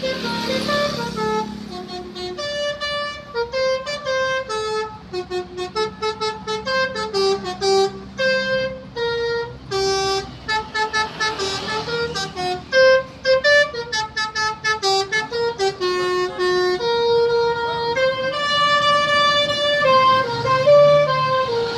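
Basuri telolet musical air horn on a bus playing a melody, one clear horn note after another in a brisk rhythm.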